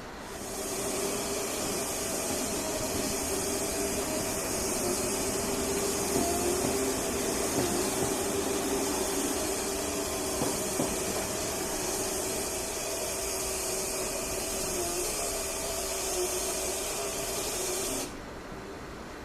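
A small electric motor running steadily with a hum and a high hiss, stopping abruptly near the end.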